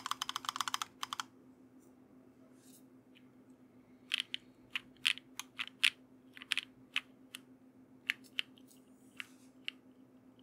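Undampened mechanical keyboard with Amethyst Tactile switches, GMK keycaps and an aluminum half-plate being typed on. A fast run of keystrokes stops about a second in. After a pause of a few seconds, slower, separate keystrokes follow, a few per second.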